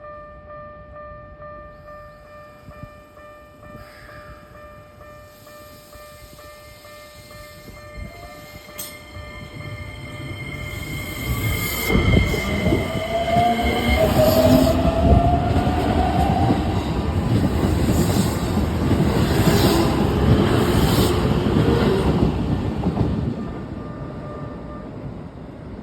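Railway level-crossing alarm sounding with a steady, unusual tone unlike Keikyu's other crossings, which the uploader takes for a temporary change during a repair. From about ten seconds in a Keikyu train passes through, loud for roughly ten seconds with a rising whine from its motors, then fades.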